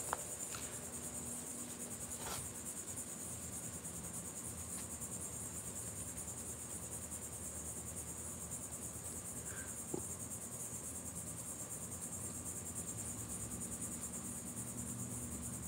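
Steady, high-pitched insect trilling, like a chorus of crickets, with a faint click about ten seconds in.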